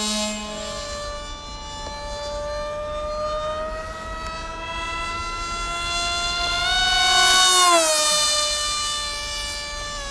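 Brushless electric motor (2400 kV) and 7x5 propeller of a foamboard delta RC plane whining in flight. The pitch climbs slowly, swells loudest about seven seconds in, then glides down, and drops again near the end.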